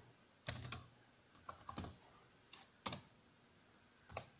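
Irregular keystrokes on a laptop keyboard as a command is typed into a terminal: about nine separate short clicks spread unevenly over a few seconds.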